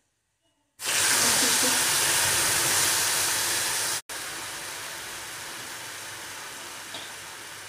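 Hot tempering oil in a kadhai sizzling sharply as wet ground green pigeon pea paste is poured in. The sizzle starts suddenly about a second in, loud and even, then after a brief cut about four seconds in it settles into a steadier, slightly quieter sizzle. This sharp sizzle is the sign that the tempering oil is properly hot.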